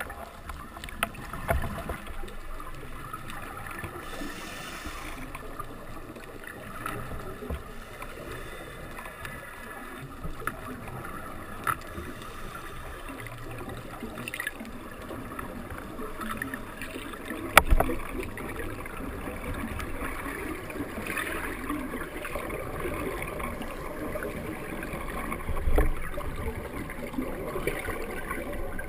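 Muffled underwater noise around a scuba diver, a steady wash with bubbling from his gear, broken by scattered clicks and one sharp knock about two-thirds of the way through.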